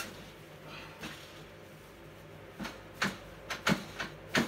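Short sharp knocks and clicks, about six of them in the second half, from a life-size Gemmy Dr. Shivers animatronic being pushed and worked to click it into place.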